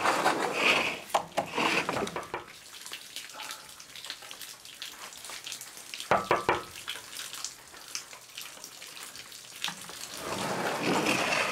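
Knuckles knocking on a glass window pane, a few sharp raps about a second in and a short cluster about six seconds in. A rushing hiss swells at the start and again near the end.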